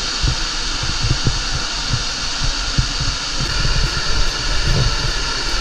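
Irregular low thumps of footsteps and handling on a handheld camera while walking, a couple a second, over a steady background hiss.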